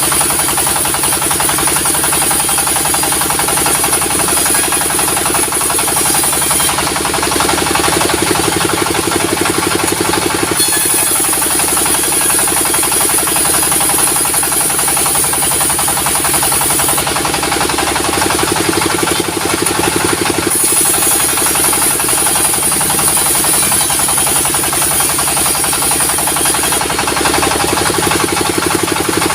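Diesel-powered sawmill running steadily with a fast engine throb, its saw cutting timber. A high whine comes and goes in stretches of several seconds, dropping out about seven, seventeen and twenty-seven seconds in.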